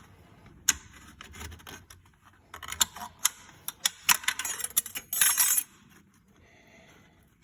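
Sharp metallic clicks, clinks and scrapes, busiest from about two and a half to five and a half seconds in: a steel snap ring being worked out of its groove in an E4OD automatic transmission assembly.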